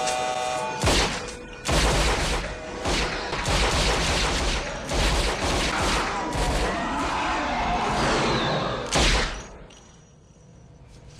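Film soundtrack of a rapid, sustained volley of gunshots with booms and crashes over dramatic music. It stops suddenly about nine and a half seconds in.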